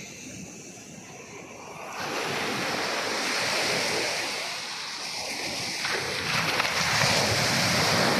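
Sea waves washing onto the shore, the surf swelling louder about two seconds in and again near the end.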